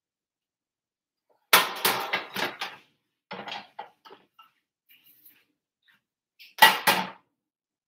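A spatula and frying pan clattering and scraping against each other and a plate as french toast is handled, in three bursts of quick knocks: about a second and a half in, around three and a half seconds, and near the end, the first and last the loudest.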